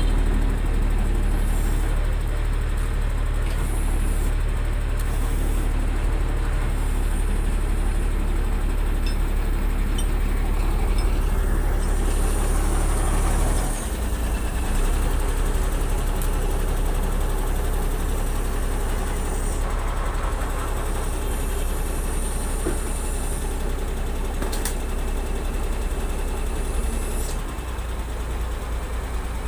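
Heavy diesel engine idling steadily with a deep, even hum. The hum steps down a little about halfway through and again near the end.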